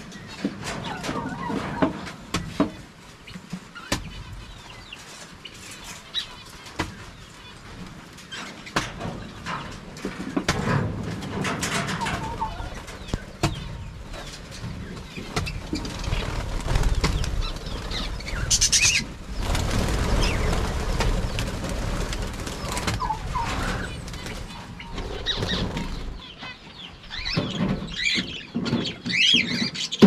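Pet parakeets flapping their wings as they fly about inside an aviary, with occasional short calls and scattered knocks.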